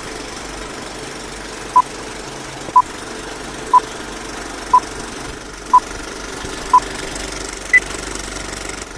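Old film-leader countdown: short beeps about once a second, six at one pitch and a seventh noticeably higher, over the steady clatter of a running film projector.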